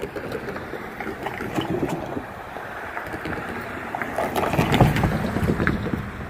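A car driving over a railroad grade crossing, its tyres rumbling and clunking across the rails and crossing panels, loudest about five seconds in.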